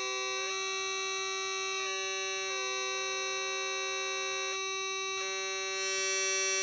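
The square-wave outputs of the kit's two 555 timer oscillators, heard through an amplifier as two steady buzzing tones. One holds a fixed pitch while the other steps between several pitches, giving a musical interval heard as fifths or thirds.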